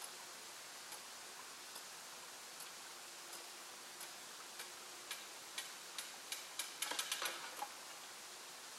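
Mechanical level-crossing barriers being raised by their wire-drawn drive: faint, sharp clicks from the barrier mechanism. They come about a second apart at first, then faster, ending in a quick cluster of clicks near the end as the booms come upright.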